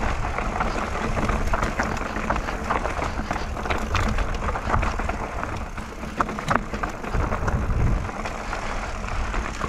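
Mountain bike riding fast down a dirt trail: wind rumbling on the microphone, with the bike rattling and knocking over bumps.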